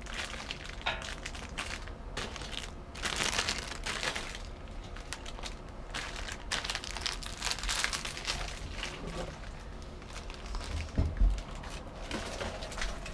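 Plastic packaging crinkling and rustling irregularly as it is handled, with a low thump about eleven seconds in.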